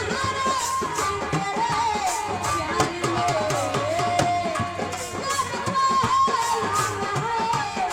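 Indian folk music with fast hand-drum playing of the tabla or dholak kind under a gliding, bending melody line.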